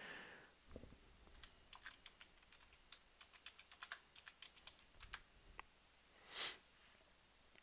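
Faint typing on a computer keyboard as a password is entered: a run of quiet, irregular key clicks, then a short soft hiss of noise a little over six seconds in.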